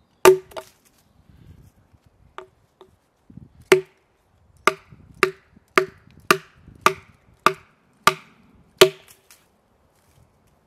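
Hatchet striking and splitting a short round of wood into kindling on a log chopping block: two sharp knocks at the start, then from about four seconds a steady run of about nine strikes, roughly two a second, each with a short woody ring.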